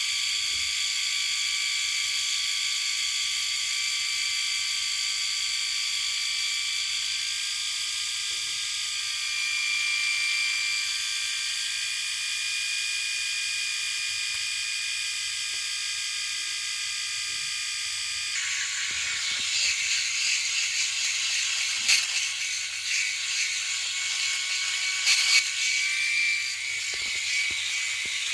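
Electric shaver running with a steady high-pitched buzz. About two-thirds of the way through the buzz turns rougher and noisier, with a couple of sharp clicks.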